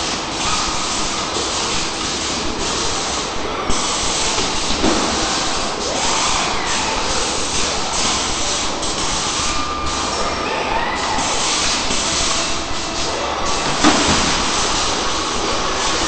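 Steady machine noise from a Fanuc robotic body-welding cell running a dry cycle without parts: a dense hiss with faint rising and falling whines as the robot arms move. Two sharp clicks stand out, about four seconds in and again later.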